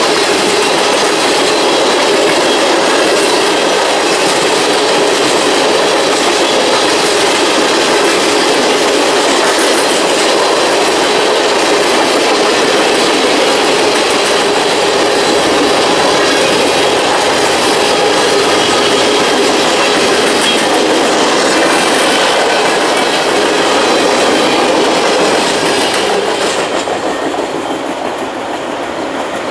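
Freight train cars, mostly tank cars and covered hoppers, rolling past, their wheels clacking steadily over the rail. Near the end the last car goes by and the sound drops away.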